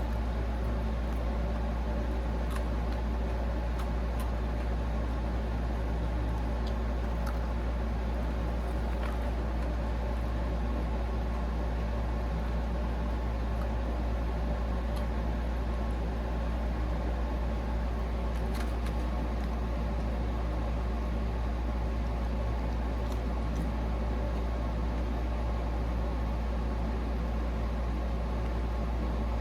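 Steady low mechanical hum, even and unchanging, with a few faint scattered clicks.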